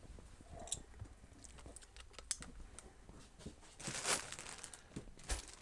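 Faint scattered clicks and taps of small metal tools and drill bits being handled while looking for a bit, with a short rustle about four seconds in.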